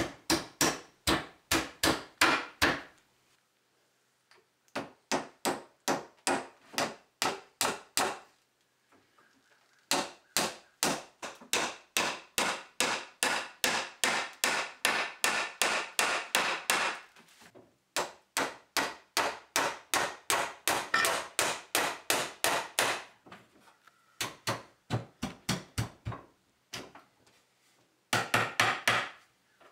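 Claw hammer tapping on wooden workpieces in quick runs of blows, about four a second, with short pauses between the runs.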